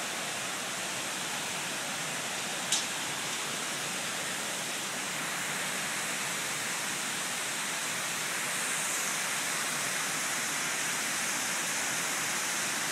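Hangar foam fire-suppression system discharging through floor grate nozzles: a steady rushing hiss of spraying foam and water, a little louder from about eight seconds in. A single short click about three seconds in.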